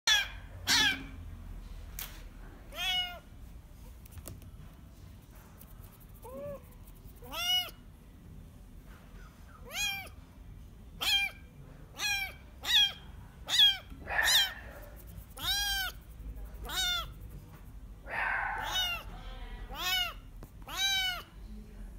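Young kitten mewing over and over: short, high calls that rise and fall in pitch, about one a second with a brief pause a few seconds in, and a couple of hoarser, noisier calls later on.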